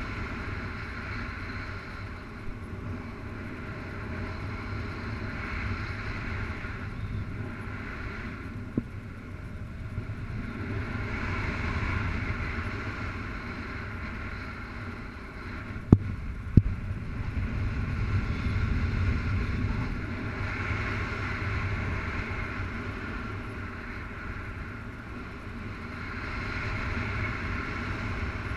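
Wind rushing over the microphone of a paraglider pilot in flight, a steady low rumble with a hiss that swells and eases every few seconds. Two sharp taps about sixteen seconds in.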